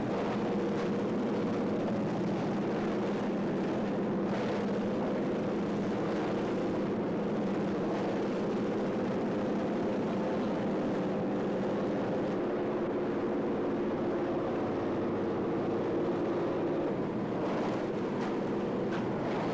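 Propeller aircraft engine droning steadily, heard from inside the cabin of a jump plane in flight.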